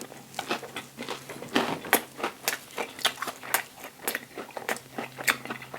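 Close-miked chewing of a vegan sausage and cheese McMuffin on a toasted English muffin: irregular wet mouth clicks and crunches, several a second, over a faint steady hum.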